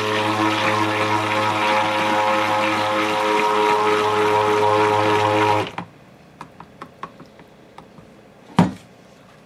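Handheld stick blender running steadily in cold-process soap batter, a motor hum with a clear pitched tone, cutting off suddenly about six seconds in. A few light clicks and a single sharp knock follow near the end.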